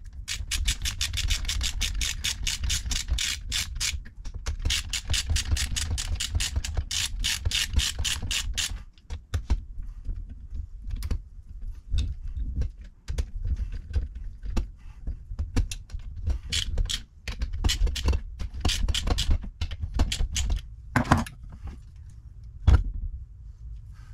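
Hand screwdriver working the screws of a Holley four-barrel carburettor, with rapid, even clicking in two runs of about four seconds each. Scattered clicks and knocks follow, with one sharp knock near the end.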